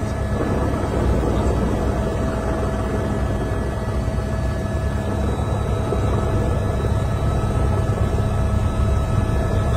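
Helicopter turbine and rotor noise heard from inside the cabin: a steady low drone with a faint constant whine over it.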